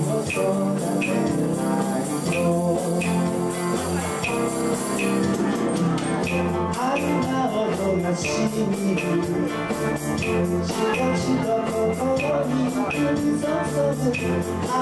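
Live band playing an instrumental passage in a rumba rhythm: guitar and keyboard over a bass line, with a steady percussion tick about twice a second. Busier cymbal-like ticking joins about six seconds in.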